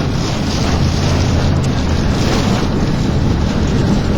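Loud, steady rush of thunderstorm wind, with rain and small hail pelting the storm-chase vehicle, heard from inside it with a low hum underneath.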